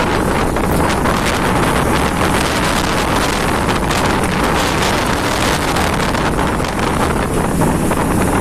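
Cyclone wind blowing hard across the microphone: a loud, dense rush of noise with constant gusty buffeting.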